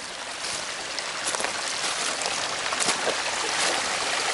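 A stream running, a steady rushing of water that grows gradually louder.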